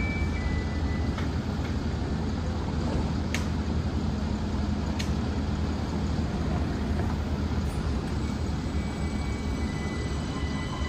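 Steady low hum of a vehicle running, with two sharp clicks about three and a half and five seconds in.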